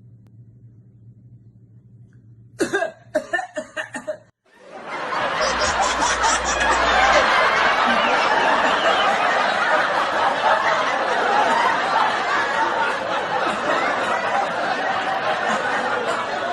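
A quick fit of about seven harsh coughs, then a crowd laughing loudly and continuously.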